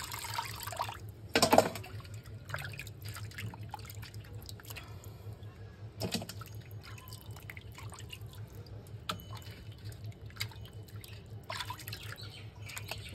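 Water splashing and dripping as cut pangas fish pieces are rinsed by hand in a steel bowl of water, lifted out and dropped back with water running off them. A louder splash comes about a second and a half in, and another near the middle.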